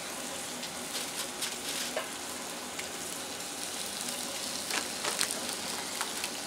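Sliced onions and ground-beef patties sizzling in oil on a hot Blackstone steel griddle top: a steady frying hiss with scattered crackles and pops.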